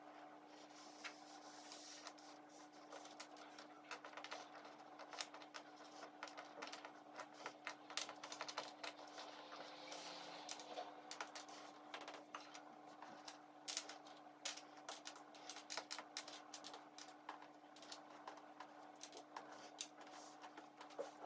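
Cardboard jigsaw puzzle pieces clicking against each other and the table top as hands sift and sort through piles of them: many small, irregular, quiet clicks over a faint steady hum.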